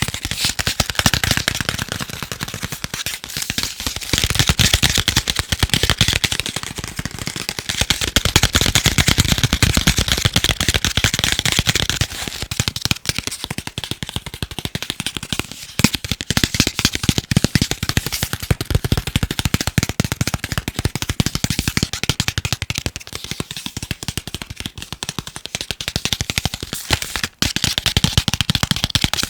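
Very fast, dense tapping on chocolate, the clicks too quick to count and coming in stretches that grow louder and softer.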